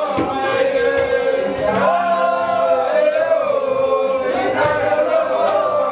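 A group of voices singing together, slow and with long held notes that gently rise and fall.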